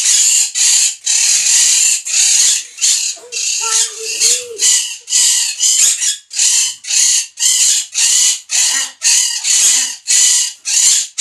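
Parrots calling loudly and repeatedly in harsh screeches, about two a second, with one longer, steadier call about four seconds in.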